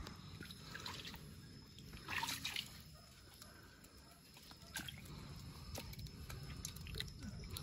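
Faint splashing and sloshing of shallow water and wet mud worked by hands, with a brief louder splash about two seconds in.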